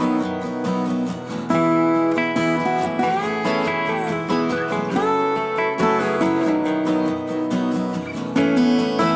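Background music of strummed and plucked acoustic guitar with a country feel.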